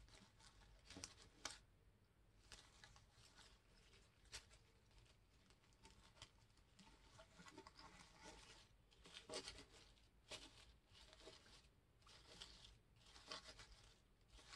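Faint, irregular rustling and crinkling of poly burlap mesh as an artificial daisy stem is pushed and worked into the wreath, with a few light clicks.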